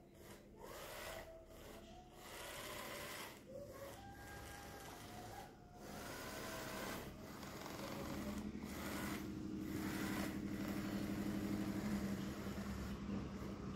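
Small DC gear motors of a homemade robotic sweeping truck whirring steadily as it drives, louder from about eight seconds in.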